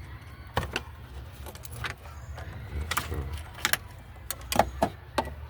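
Hard plastic and metal parts being handled and fitted in a car's engine bay while power steering hoses go on: a series of sharp, separate clicks and clinks, about eight of them, over a low steady hum.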